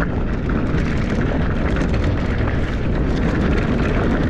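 Mountain bike running fast down a dirt singletrack: a steady rumble of tyres on dirt and rocks with the bike rattling in a dense run of small clicks, and wind on the camera microphone.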